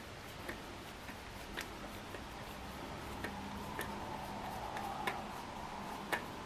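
Screwdriver backing a butt-pad screw out of a wooden air-rifle stock: sharp, irregular clicks, roughly one or two a second, as the driver is turned and regripped.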